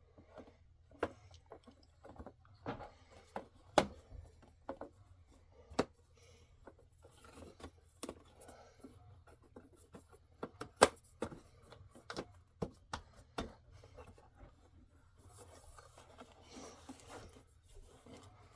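Irregular clicks, taps and light scraping of small hard objects being handled and set down, with two sharper knocks about 4 and 11 seconds in and soft rustling near the end.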